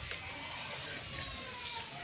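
Quiet outdoor background with a low rumble of wind on the microphone, and a faint thin falling whistle-like call about a second in.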